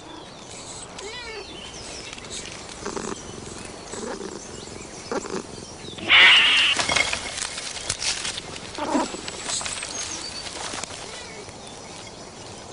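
A cat scuffling with young chameleons in a leafy bush: branches rustling with scattered light knocks, and a short, sharp hiss about six seconds in, the loudest sound.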